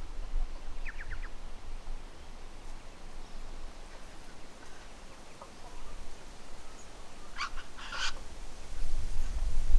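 Outdoor bush ambience: a low wind rumble on the microphone, a quick run of three short bird chirps about a second in, and two brief harsh calls near the end.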